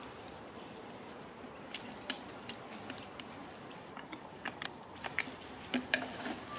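Scattered soft clicks and crackles from a huddle of macaques close by, with a few sharper ones in the second half, over a faint steady hiss.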